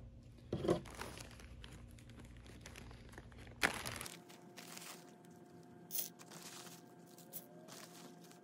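Plastic zip-lock bag crinkling as it is picked up and opened, with a couple of sharp knocks of small items set down on the table.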